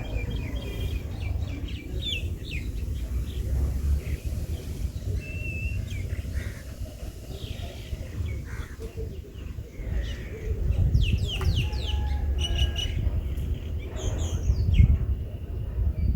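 Birds chirping and calling in short, scattered notes, busiest about two-thirds of the way through, over a steady low rumble.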